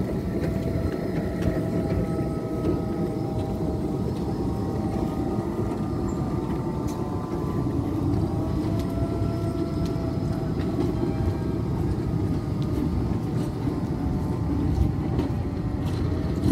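Electric city tram running: a steady rumble of wheels on rails with a faint motor whine that drifts slowly up and down in pitch.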